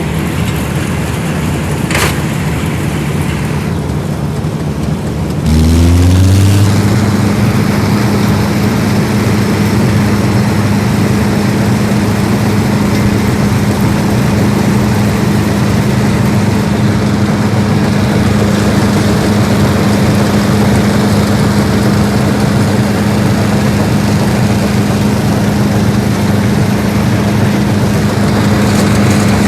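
Vintage harvesting machine's engine running, with a short click about two seconds in; a few seconds later it speeds up, rising in pitch and getting louder, then holds steady at the higher speed.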